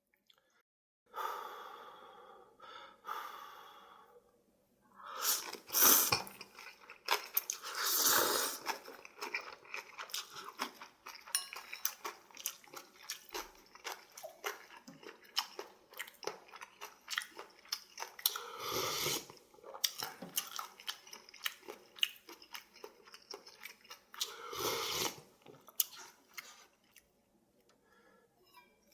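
Person eating ramyun noodles close to the microphone: several long, loud slurps, with chewing and small wet clicks in between.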